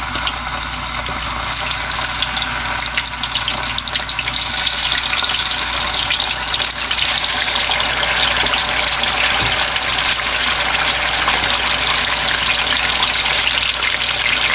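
Chicken drumsticks sizzling and crackling in hot oil in a wok as more pieces are laid in. The frying gets louder over the first few seconds, then holds steady.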